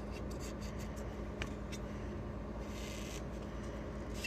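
Faint clicks and a brief scrape from a removed front control arm being worked by hand, its worn rear rubber bushing turning loosely in its housing, over a steady low hum.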